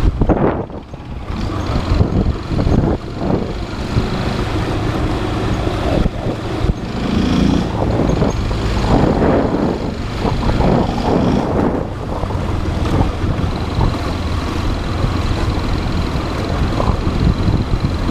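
Motorcycle engine running while riding through city traffic, with wind buffeting the camera microphone.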